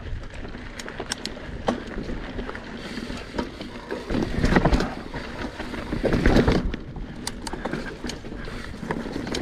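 Mountain bike riding down a rocky technical trail: tyres rolling over rock and dirt over a steady low rumble, with sharp clicks and rattles from the bike. There are two louder stretches of impacts, about four and a half and about six seconds in, as the bike drops over the rock ledges.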